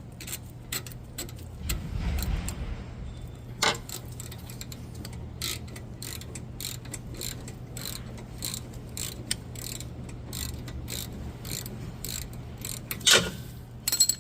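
Hand ratchet clicking steadily as a brake caliper bolt is turned out, several clicks a second, with a loud metallic clank near the end.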